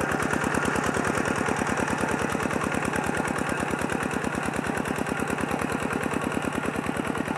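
Single-cylinder diesel engine of a two-wheel walking tractor running steadily under load as it pulls a plough through a flooded rice paddy, with a fast, even thudding beat.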